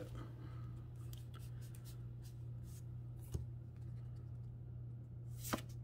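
Trading cards handled quietly, with a few faint clicks, over a steady low hum.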